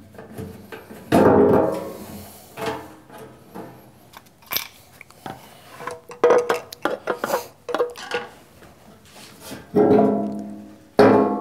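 Sheet-metal lathe backsplash knocking and clanging as it is handled and lifted off, the metal ringing on briefly after each knock. The loudest knocks come about a second in and twice near the end.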